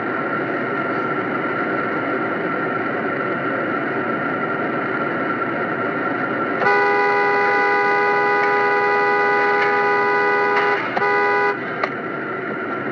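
Steady car noise, then about halfway in a car horn sounds and is held for about five seconds, with a short break near the end.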